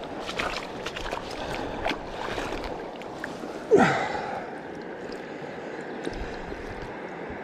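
Shallow river water splashing and sloshing around a landing net worked by hand at the river's edge, with small splashes in the first few seconds. About halfway through comes a short, loud grunt that falls in pitch.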